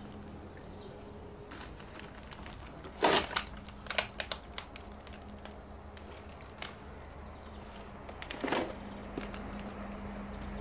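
Footsteps crunching over rubble and debris, with a handful of sharp cracks and crackles: a cluster about three to four seconds in and another near the end.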